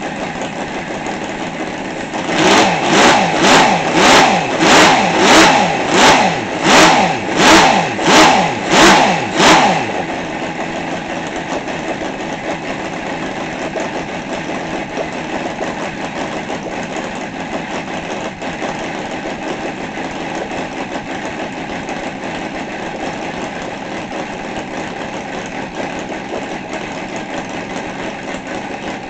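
Seidel UMS 7-70 seven-cylinder 70 cc glow-fuel radial model aircraft engine idling with the glow plugs unpowered. From about two seconds in until about ten seconds in, the sound swells loudly and falls back about eleven times in a regular rhythm, then settles back to a steady idle.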